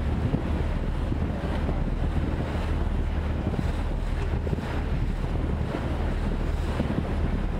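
Wind buffeting the microphone over the steady low drone of a tour boat's engine and water rushing past the hull as the boat moves.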